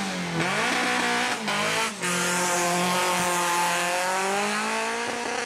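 Volkswagen Polo rally car engine revving high at a stage start, the pitch dipping and then climbing in the first second and a half. After a brief break about two seconds in, it holds at high revs over a hiss of tyre noise as the car accelerates away.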